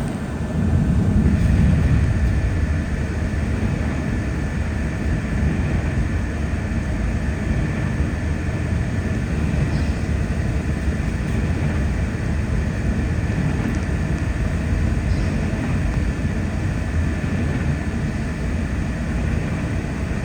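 Car driving on a wet highway: steady tyre and road noise with a low rumble, a little louder from about a second in.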